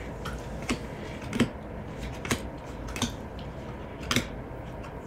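Topps baseball cards being flipped one at a time from a stack held in the hands, each card giving a short crisp snap, about one a second.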